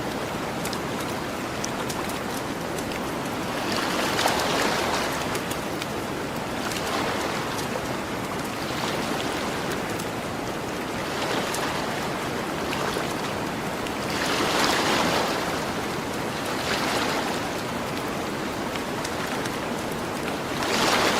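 Gentle ocean waves washing onto the shore, swelling every two to three seconds over a steady wash. A campfire crackles through it in small, sharp pops.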